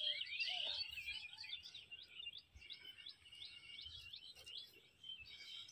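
Small birds chirping: a continuous run of short, quick high notes, busiest in the first second or so and then repeating more sparsely.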